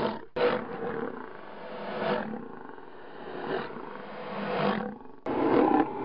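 Lion roars reworked into a horror sound effect: a run of swelling roars, each lasting a second or two. The sound cuts out abruptly twice, briefly just after the start and again just before the loudest roar near the end.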